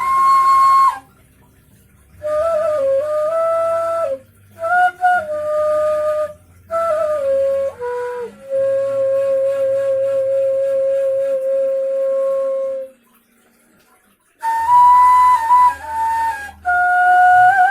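Homemade ney (end-blown flute) made from PVC pipe, played in short breathy phrases that slide between notes. Near the middle it holds one long low note, and the phrases are split by brief pauses.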